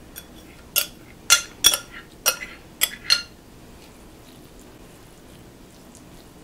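A spoon clinking against a glass mixing bowl and a cast iron skillet while scraping wet cornbread dressing out of the bowl. There are about seven sharp clinks over the first three seconds.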